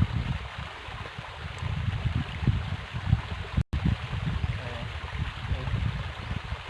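River water flowing with a steady rush, over an irregular low rumble. The sound drops out completely for an instant a little past halfway.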